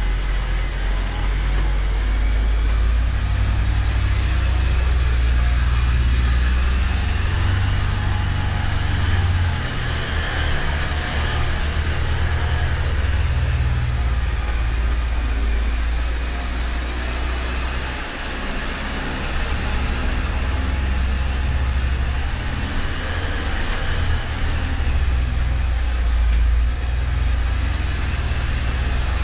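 Jeep Wrangler engine running at low speed as the vehicle crawls through a rocky cave tunnel, a steady low rumble with a brief dip about 18 seconds in.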